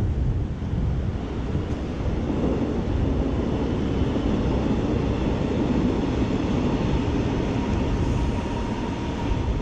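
Steady rush of a shallow river riffle flowing over rocks, with wind buffeting the microphone.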